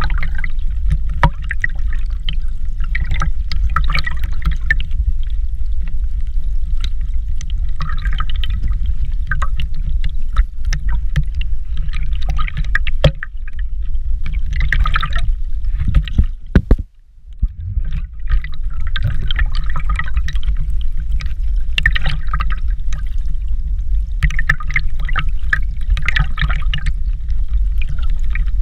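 Rushing water with a heavy low rumble and irregular splashing and bubbling over it; the sound cuts out briefly about seventeen seconds in, right after a couple of louder knocks.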